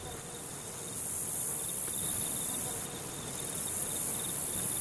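Insects chirring in summer grass: a steady high-pitched hiss with a faint fast pulsing tone under it, over a low rumble.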